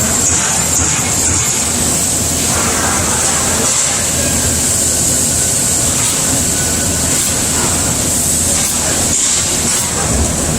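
Amada CNC turret punch press running: dense, steady mechanical noise with a constant high hiss.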